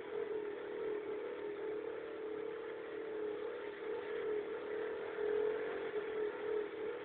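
Kymco scooter's small engine running steadily, a droning hum that wavers slightly in pitch.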